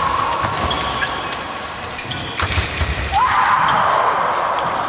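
Fencers' feet thudding on the piste with sharp blade clicks, then a little over three seconds in the electric scoring box's buzzer sounds a steady tone, signalling a touch registered.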